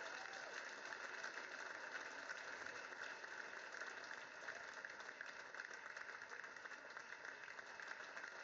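Audience applauding: dense, steady clapping that eases off slightly toward the end.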